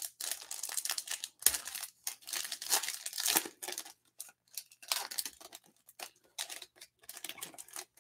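Foil wrapper of a Panini Select UFC trading-card pack being torn open and crinkled by hand: a run of irregular crackling rustles, thinning out near the end as the cards are drawn out.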